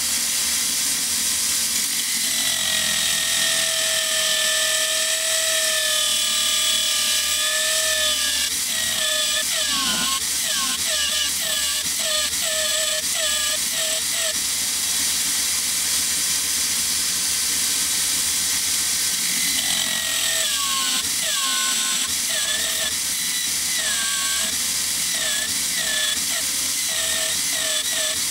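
Electric drill spinning a sanding disc while a wooden knife handle scale is pressed against it: a steady sanding hiss over the drill's whine. Through the middle and again near the end, the whine dips in pitch and recovers about twice a second as the wood is pushed into the disc.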